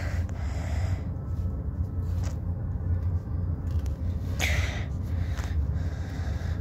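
Steady low rumble of background noise, with a few faint brief rustles about two, four and a half and five and a half seconds in.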